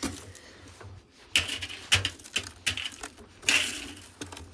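Packed snow crunching and scraping under a bare hand in a series of short, irregular strokes, about six in all.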